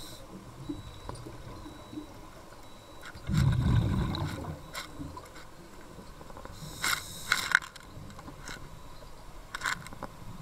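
A scuba diver breathing through a regulator underwater: a burst of exhaled bubbles about a third of the way in, and the hiss of an inhalation through the regulator a little past the middle, with a few faint clicks.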